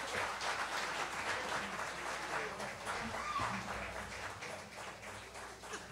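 Small audience applauding, fading gradually toward the end.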